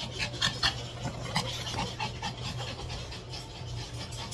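Small pet dogs panting and scuffling as they play, with short scratchy clicks in the first second and a half, over a steady low hum.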